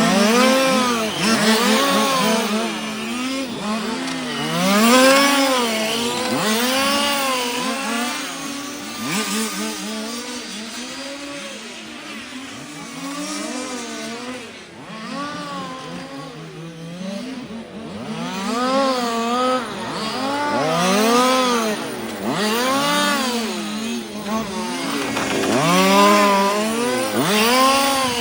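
Small two-stroke petrol engines of 1:5-scale RC cars lapping a track, several at once. Each revs up and falls away again every second or two as they accelerate, brake and pass by.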